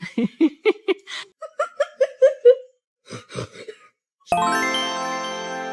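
Short vocal bursts, including a quick run of repeated syllables, then about four seconds in a bright chime sound effect strikes and rings, slowly fading.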